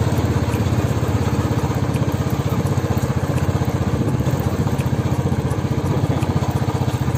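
Motorcycle engine running steadily at an even speed, a fast regular putter with no revving.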